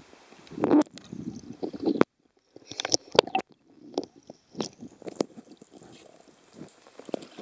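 Underwater handling noise from a camera inside a shark-diving cage: irregular knocks, bumps and muffled water movement as it swings against the cage and the diver's hands. The sound cuts out for a moment about two seconds in, and a faint high steady whine comes in near the end.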